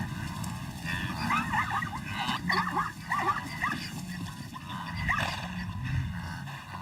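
An animal giving runs of short, high yipping and whimpering calls in quick succession, over a steady low hum.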